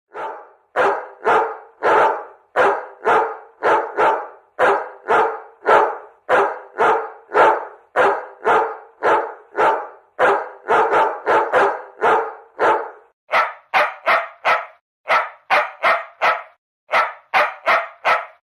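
A dog barking in a steady series, about two barks a second. About thirteen seconds in, the barks turn higher and shorter and come in quick bunches: puppy yaps.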